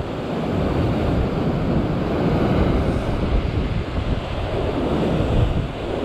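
Sea surf surging and breaking against a rocky shore ledge, a loud, continuous wash that swells and eases, with wind rumbling on the microphone.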